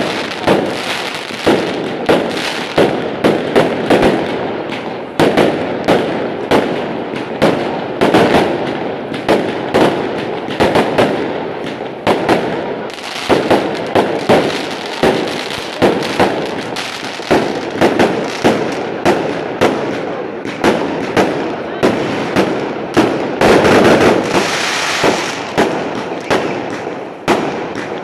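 Aerial fireworks bursting overhead in quick succession: sharp bangs about one or two a second over continuous crackling, with a denser, louder flurry a few seconds before the end.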